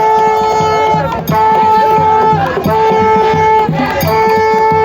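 Traditional live music: a melody of four long held notes, each about a second, over steady hand drumming.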